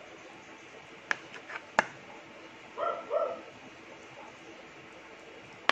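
A knife slicing a block of Spam on a plastic plate, the blade clicking sharply against the plate a few times between one and two seconds in. About three seconds in come two short barks close together from a small dog.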